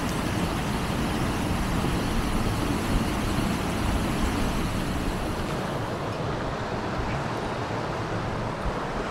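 Steady rush of a mountain stream running over rocks, an even wash of water noise.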